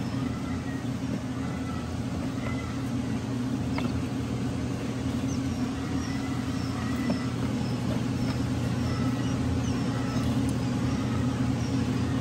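Newly hatched quail chicks peeping: short high peeps, about two a second, through the middle, over a steady low machine hum.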